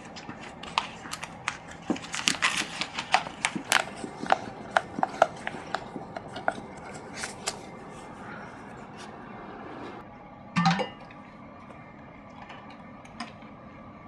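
A sheet of paper crackling and crinkling as it is rolled up by hand, in quick irregular crackles that thin out after about seven seconds. A single short knock about three-quarters of the way through.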